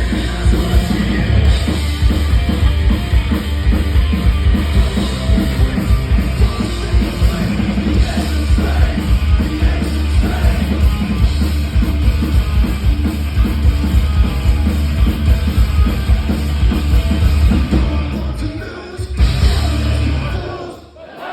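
Live rock band playing loud and fast, with drum kit, guitars and bass and some singing; the music breaks off near the end.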